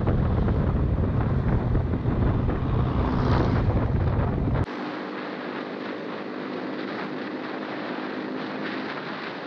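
Heavy wind buffeting on an action camera's microphone on a moving Honda RS150 motorcycle, with the engine running underneath. A little under halfway through it cuts off abruptly to a quieter, thinner steady motorcycle engine hum with much less wind.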